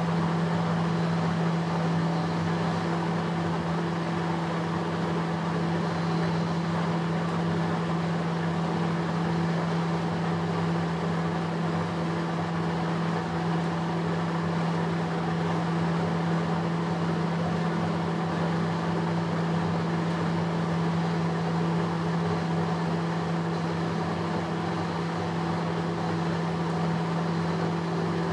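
Fisher & Paykel AquaSmart top-load washing machine spinning its basket at a steady speed. Its direct-drive motor gives a steady low hum with no change in pitch.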